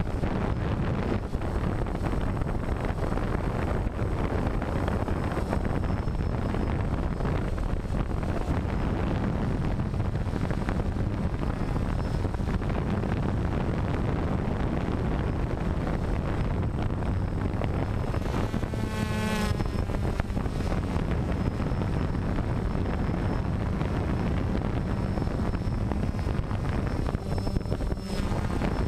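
DJI Phantom quadcopter's electric motors and propellers buzzing steadily in flight, heard from the camera slung beneath it, mixed with wind noise on the microphone. A brief wavering whine rises out of it about two thirds of the way through.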